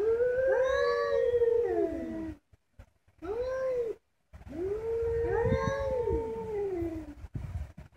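Two domestic cats caterwauling at each other in a face-off: long, drawn-out threat yowls, one voice held level while the other rises and falls across it. Three spells of yowling with short breaks between them.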